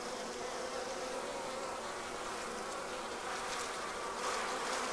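Honeybees buzzing steadily in a dense hum around an open hive frame.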